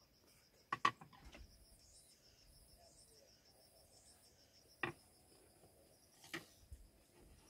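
Crickets chirping in a steady pulsing trill, with a few sharp clicks of chopsticks and tableware, the loudest about a second in.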